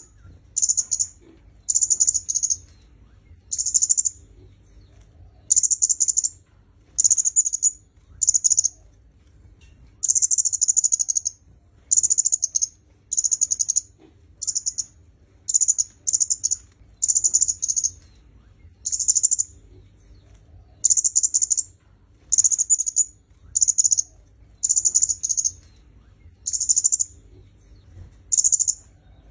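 Kemade kepala merah, a red-headed flowerpecker, calling: short, very high-pitched chattering phrases, one after another about once a second.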